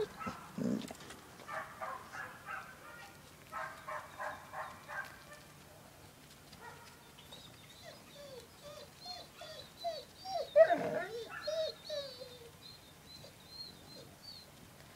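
Dogs yelping and barking in short runs, with one loud bark about eleven seconds in. Small birds chirp faintly during the second half.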